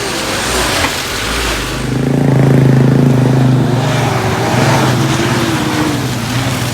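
A motor vehicle's engine running hard under load; it swells in loudness about two seconds in and then holds on steadily.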